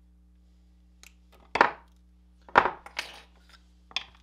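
A few sharp metal clinks and clatters from side cutters and small cut-off wire parts being handled and set down on a workbench. The two loudest come about a second and a half and two and a half seconds in, with a short rattle just after the second.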